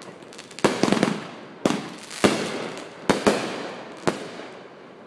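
Aerial firework shells bursting overhead: about seven sharp bangs over some four seconds, some in quick pairs, each followed by a fading tail.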